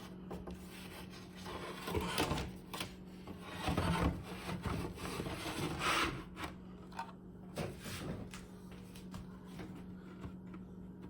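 Plastic cover scraping and rubbing against the Macintosh 128K's case as it is held and pushed into place, with scattered clicks and knocks. The rubbing is loudest in the first half.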